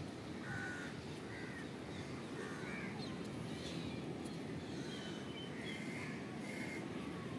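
Crows cawing, short calls about once a second, over a steady low rumble.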